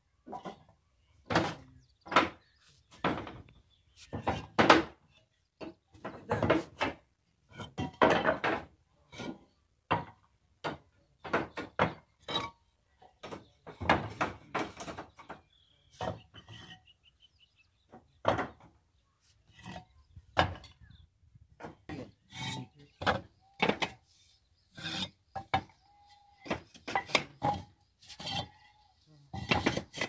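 Clay bricks knocking and clacking against each other and on the roof as they are handled and set in place. The knocks are sharp and irregular, about one or two a second.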